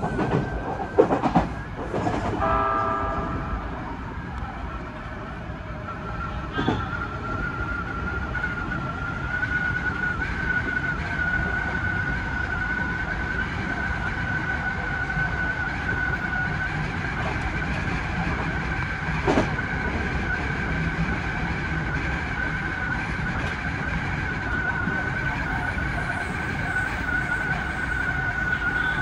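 Odakyu 3000 series electric train running, heard from behind the driver's cab: a steady rumble of wheels on rail with a steady high whine, several clicks as it crosses points in the first couple of seconds, and a brief tone about two and a half seconds in.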